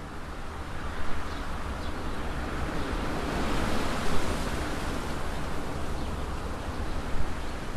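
Wind blowing across open ground: a steady rushing that swells and fades a few seconds in, over a gusty low rumble of wind buffeting the microphone.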